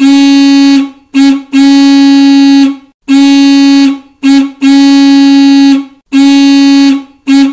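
A horn honking loudly on one steady note, in a string of about eight blasts: long honks of about a second mixed with short toots.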